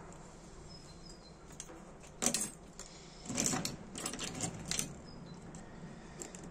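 Sharp little metal clicks and taps from handling a Dunhill Rollagas lighter and small hand tools during reassembly. There is one loud click about two seconds in and a cluster of clicks from about three and a half to five seconds.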